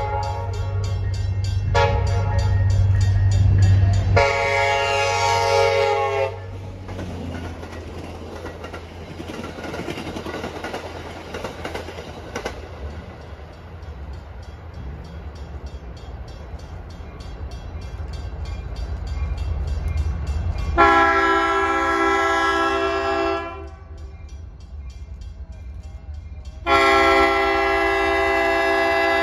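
Diesel train horns sounding long multi-note blasts, with the low rumble and wheel noise of a passing train between them. The last two long blasts, near the end, come from the approaching freight's locomotives.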